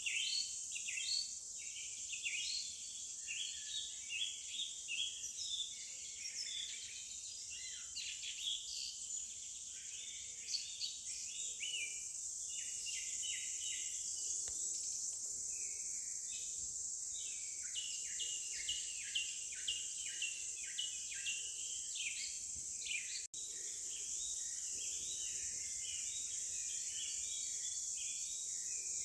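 Forest ambience: many birds chirping in quick, overlapping short calls over a steady, high-pitched insect drone, broken by a split-second gap about three quarters of the way through.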